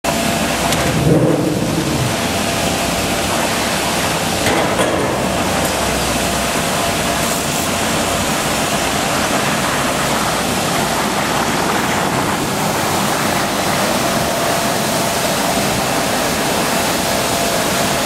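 Apple washing machine running: water churning and bubbling hard in its stainless-steel tank, a steady rushing noise like heavy rain.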